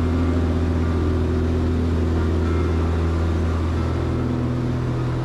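Cessna 180's six-cylinder Continental O-470 engine and propeller running steadily, heard from inside the cockpit.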